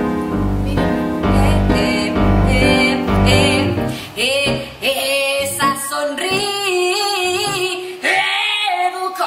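Music: a song with bass-heavy accompaniment for the first few seconds, then from about four seconds in a woman singing with wide vibrato over lighter accompaniment.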